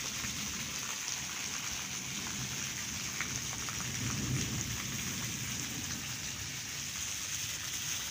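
Heavy rain pouring down steadily in a storm, with a low rumble swelling about four seconds in.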